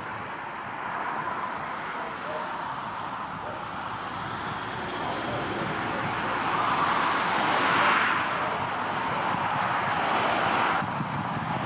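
Outdoor road-traffic noise, a steady rush that swells to a peak about eight seconds in, as of a vehicle passing, and drops suddenly shortly before the end.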